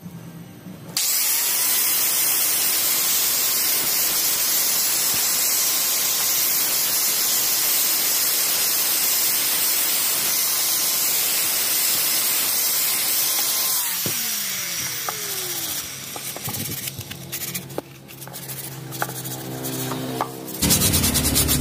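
Electric angle grinder with a flap sanding disc starting about a second in and running steadily with a high whine as it sands the edge of a metal motorcycle number plate. It is switched off after about thirteen seconds and winds down with a falling whine, followed by scattered clicks and scrapes.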